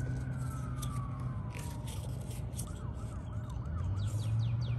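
A siren: one long tone sliding slowly downward, then a quicker up-and-down warble about halfway through, over a steady low hum.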